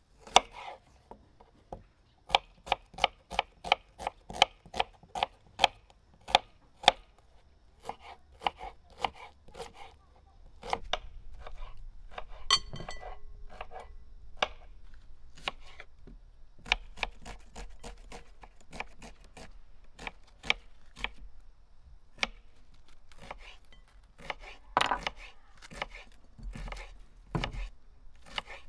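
Kitchen knife chopping an onion on a wooden cutting board, with regular sharp strikes about two a second. After about ten seconds there are irregular taps and crackles over a low rumble as pomegranates are cut and broken open by hand.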